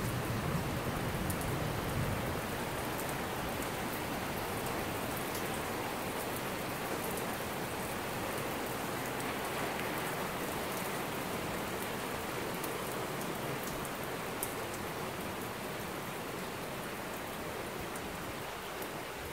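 Heavy rain pouring steadily onto the street and parked cars, with a low rumble in the first couple of seconds.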